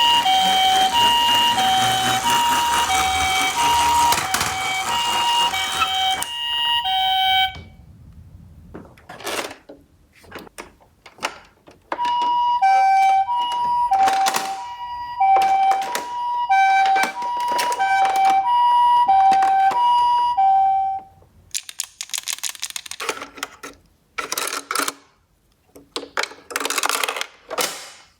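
Toy ambulance minicar's electronic siren sounding the Japanese two-tone 'pee-po' call, a high and a low tone swapping about twice a second over a rushing noise, cutting off about seven seconds in; scattered clicks and knocks follow. The siren sounds again from about twelve seconds in for some nine seconds amid knocks, then stops, and bursts of clattering come near the end.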